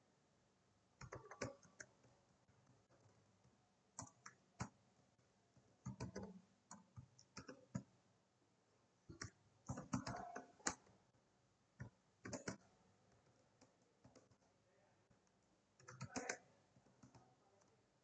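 Computer keyboard being typed on: faint clicking keystrokes in short, irregular bursts with pauses between.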